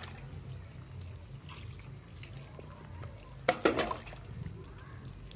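Faint trickle of water running over a dusty rooftop solar panel that is being washed by hand. A brief voice sound comes about three and a half seconds in.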